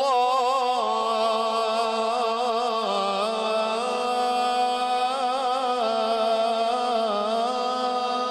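Male qari reciting the Quran in melodic tajweed style into a microphone, holding one long ornamented vowel without a break, its pitch wavering and stepping down about three seconds and again about seven seconds in.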